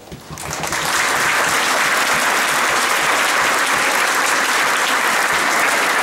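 Audience applauding; the clapping swells up over about the first second and then holds steady.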